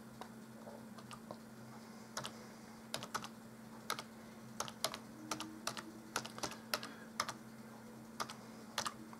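Typing on a computer keyboard: irregular key clicks, few at first and coming in quicker runs after about two seconds, over a faint steady hum.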